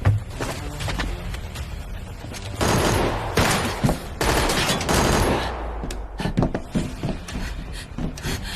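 Gunfire in a staged action shootout: scattered single shots, then two long bursts of rapid automatic fire between about two and a half and six seconds in, followed by more scattered shots.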